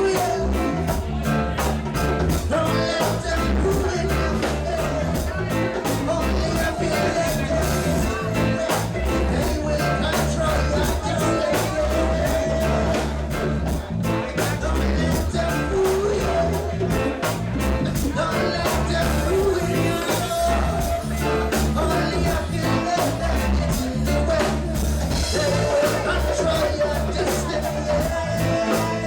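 Live reggae band playing, with a heavy bass line and a drum kit keeping a steady rhythm.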